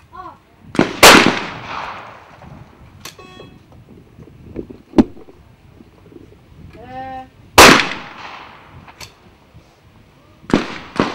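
Trap shotguns firing outdoors: sharp shots with echoing tails, about a second in, again about 7.5 s in, and two shots in quick succession near the end.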